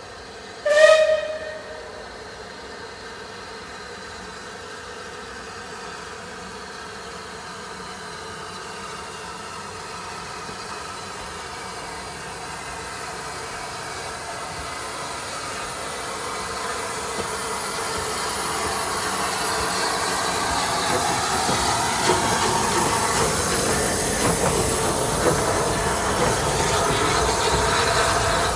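Rebuilt Bulleid Battle of Britain class steam locomotive 34053 'Sir Keith Park' gives one short whistle about a second in. The sound of the engine running and hissing then grows steadily louder as it comes closer and passes near the end.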